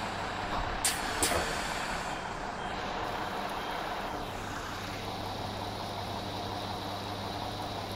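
Diesel engine of a Class 172 Turbostar multiple unit running steadily with a constant low hum, with two sharp clicks about a second in.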